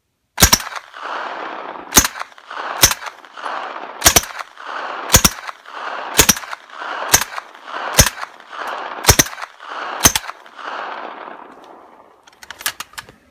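Suppressed IMI Uzi firing 9mm tracer rounds: about ten single shots roughly a second apart, each trailing off in an echo. A few faint clicks come near the end.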